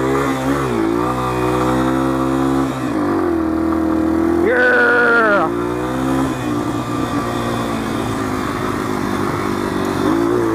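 1987 Yamaha TW200's single-cylinder four-stroke engine running under throttle as the bike climbs a sand dune, its pitch rising and falling with the throttle. About four and a half seconds in it revs sharply higher for about a second, then drops back and eases off.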